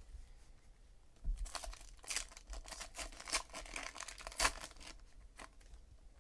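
A foil trading-card pack being torn open and its wrapper crinkled in the hands: a run of crackling rustles starting about a second in, loudest a little past halfway.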